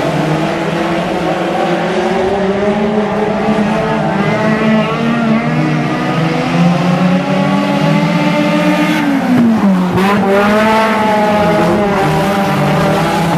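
Pack of four-cylinder front-wheel-drive race cars running hard around a dirt oval, engines held at high revs. About nine seconds in, one car passes close and its engine note drops in pitch, then the engines climb again.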